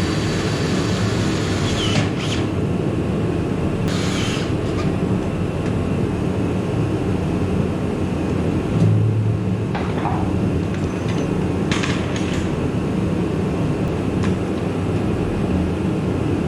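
Welder tacking a sheet-metal cover plate in place: a few short crackling bursts, about two, four and twelve seconds in, over a steady machine hum.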